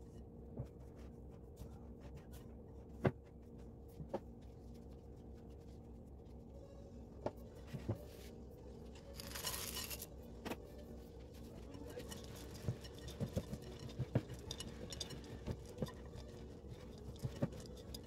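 Spatula knocking and scraping against a glass mixing bowl while stirring stiff cookie dough, in scattered sharp clicks. About nine seconds in, semi-sweet chocolate chips pour into the bowl in a brief rushing patter, and the clicks then come more often as the chips are stirred in.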